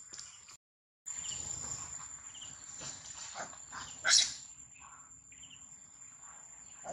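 A short, loud shriek from a baby long-tailed macaque as an adult grabs it by the tail, about four seconds in, over a steady high-pitched insect drone.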